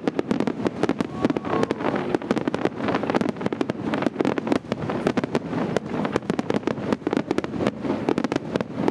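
Fireworks display: a dense, continuous barrage of rapid bangs and crackles, many per second with no pause.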